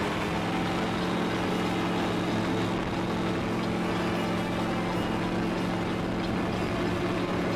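Rotax 912 engine and propeller of an Airborne XT-912 microlight trike running at a steady drone as the trike rolls down the runway for takeoff, heard from on board. The engine note rises slightly in the first second, then holds steady.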